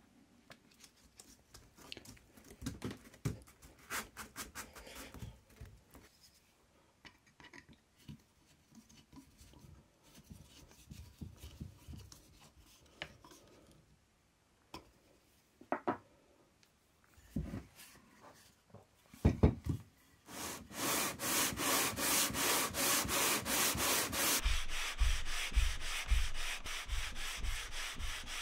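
Sole of an old Marples wooden jack plane being sanded flat, rubbed back and forth on abrasive paper. First come quiet handling noises and a few knocks. About two-thirds in, loud, quick rhythmic rasping strokes begin, and near the end each stroke ends with a low knock.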